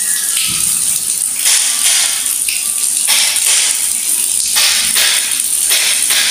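Steady stream of running water splashing onto a tiled floor.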